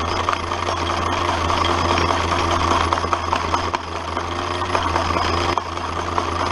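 Homemade jaw crusher running steadily with a constant mechanical drone, its toothed steel jaws crushing small stones with a stream of small clicks and cracks.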